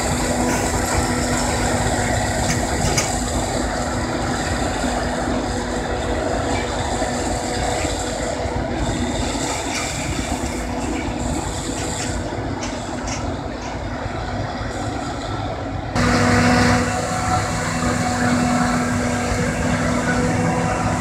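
Claas Jaguar 870 self-propelled forage harvester chopping standing maize for silage: its engine and cutterhead run steadily with a constant hum, along with the tractor hauling the silage trailer beside it. About three-quarters of the way through, the sound abruptly becomes louder, with a stronger hum.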